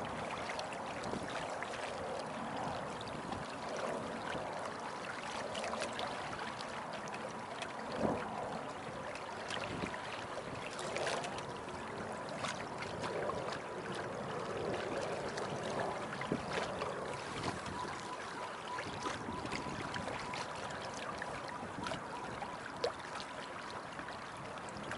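Water rushing and trickling along the hull of a small sailboat, a Beneteau First 20, under way, with scattered small clicks and knocks. A faint steady high tone runs underneath.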